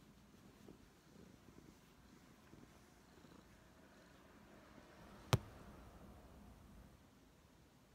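Tabby cat purring steadily and faintly, close to the microphone. A single sharp click about five seconds in.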